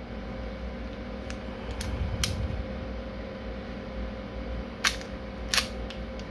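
Sharp mechanical clicks from an airsoft Colt 1911 pistol being handled as its takedown catch is pressed to free the upper slide, which can stick. About seven separate clicks, the two loudest a little before the end.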